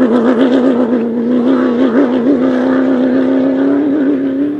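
Rally racing vehicle's engine running hard at high revs, its pitch wavering and climbing slightly.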